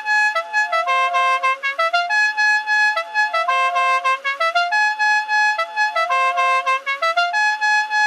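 Five-trumpet multi-tone musical air horn playing a short tune of distinct held notes stepping up and down in pitch, the tune repeating about every three and a half seconds.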